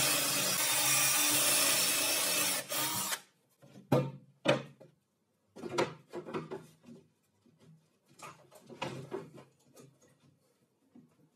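A cordless drill runs steadily, boring into a metal plate on a wooden bench, and cuts off about three seconds in. Then come scattered knocks and clatters of a wooden strip and a metal bar clamp being set down and handled on a wooden tabletop.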